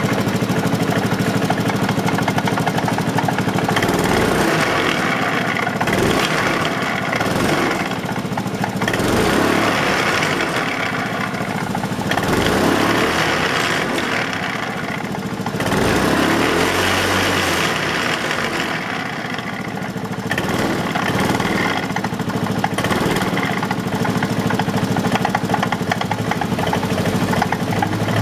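A 125 cc scooter engine idling and being revved up and back down about four times, running with an abnormal noise from its CVT transmission case.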